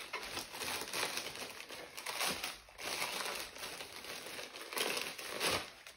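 Crinkling and rustling of pineapple-print wrapping as it is pulled open by hand, with several irregular louder crackles.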